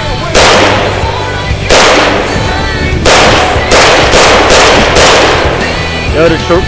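AK-47 rifle (7.62×39 mm) firing about eight shots, the first three more than a second apart, the rest quicker at about two a second, over background music.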